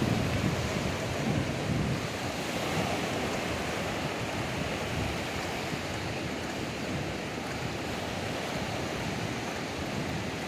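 Ocean surf washing onto a beach in a steady rush, with wind buffeting the microphone in low gusts during the first couple of seconds.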